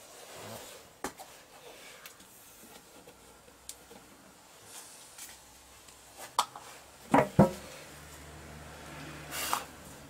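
Handling noises: light clicks and taps, then two sharp knocks about seven seconds in and a brief scrape near the end, as a clear plastic lid is set into the opening of an aluminium engine side cover. A faint low hum starts after the knocks.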